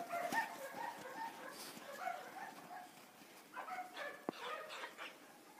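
Blue merle puppies play-fighting, giving runs of short high-pitched yips and barks, with a lull about halfway before another run of yips.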